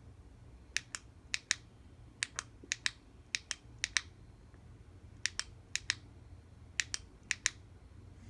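A flashlight's push-button switch clicked repeatedly, each press a quick double click, about ten presses in two runs with a pause in the middle.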